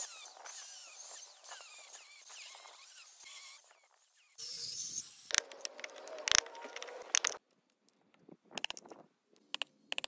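Hand tools working a wooden log: scraping and sawing through the wood for the first several seconds, then a string of sharp clicks and cracks as chunks of wood are split out with a chisel.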